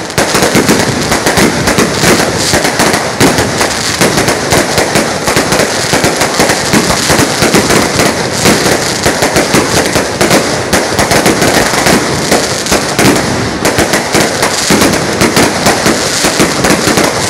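Long string of firecrackers going off without a break, a dense rapid crackle of loud bangs.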